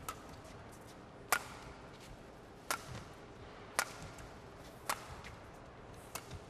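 Badminton rally: rackets striking the shuttlecock, six sharp hits about a second and a quarter apart, over steady arena background noise.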